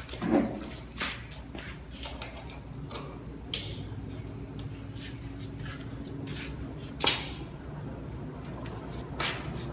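Scattered clicks, knocks and cloth rustling as a corded electric hair clipper and a barber's cape are handled, over a faint steady low hum. The sharpest knocks come just after the start and about seven seconds in.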